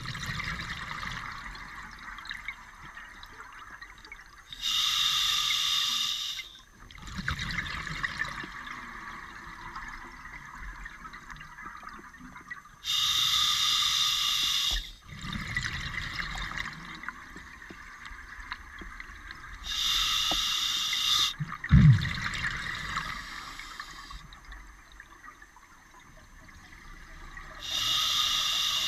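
Scuba diver breathing underwater through a regulator: a slow hiss on each inhale, then a burst of exhaled bubbles about every seven to eight seconds, four times. A single sharp knock comes just after the third bubble burst.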